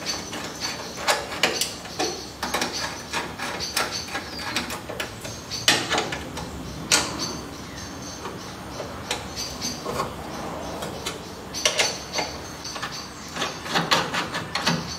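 Hand tools clicking and tapping against metal while small 6 mm bolts are screwed into a bonnet-pin bracket: irregular sharp clicks, some in quick runs.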